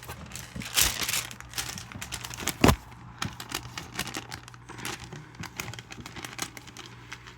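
Crinkling and rustling of paper and plastic being handled, as dense irregular clicks, with one louder knock about two and a half seconds in.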